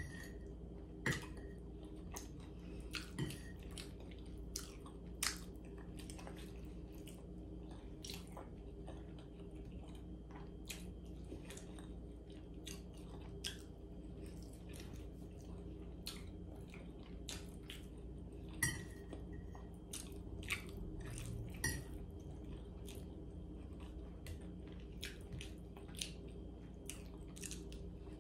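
A person eating close to the microphone, chewing mouthfuls of Hamburger Helper pasta, with scattered wet mouth clicks and a few short clinks of a metal fork against the plate.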